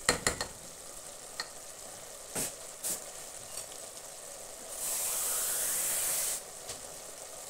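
Tripe stew with carrots and onions sizzling as it fries in an aluminium pot, a steady frying hiss. A few sharp knocks of the wooden spoon come against the pot at the start, and a couple more about two and a half seconds in. Past the middle, a louder hiss lasts about a second and a half.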